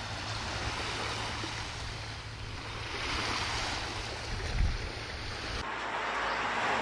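Small waves washing on a pebble-and-shell beach, with wind rumbling on the microphone. About five and a half seconds in, this cuts to a different, lighter outdoor background hiss.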